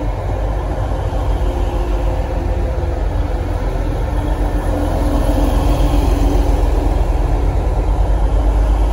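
Class 185 diesel multiple unit arriving at a platform: the low rumble of its underfloor Cummins diesel engines and running gear as the carriages roll slowly past, with a steady hum over it. It grows a little louder about five seconds in.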